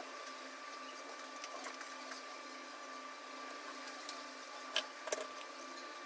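Faint steady hum of small electric repair-bench equipment, with a few light clicks of small tools about five seconds in.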